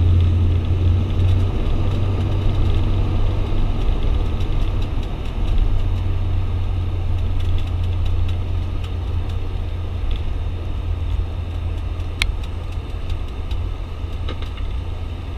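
ATR 72-600's Pratt & Whitney PW127 turboprop engines and propellers droning steadily with a deep hum, heard from inside the cabin as the aircraft rolls along the runway after landing. The drone eases slightly toward the end, and a single sharp click sounds about twelve seconds in.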